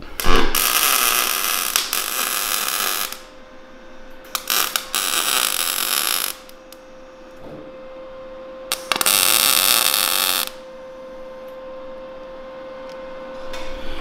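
TIG welding: three arcs of a few seconds each, an even hissing buzz, with a steady hum and a few clicks between them.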